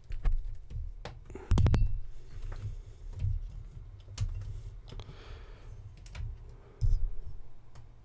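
A power cable being handled and routed by hand: irregular clicks, taps and rustling, with louder knocks about a second and a half in and again near the end.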